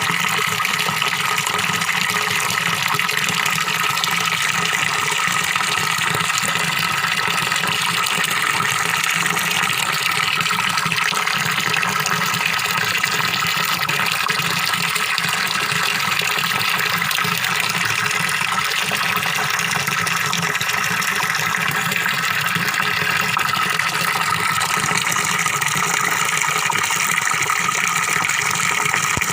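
Small waterfall pouring steadily into a fish pond: a continuous gurgling splash that never changes.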